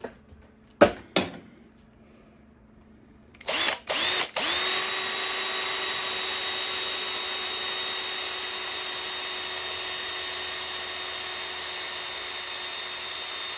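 Electric hand drill boring a rivet hole through the seat into the bike frame's tube: two sharp knocks about a second in, two brief trigger pulls a few seconds in, then the drill running at a steady, even whine.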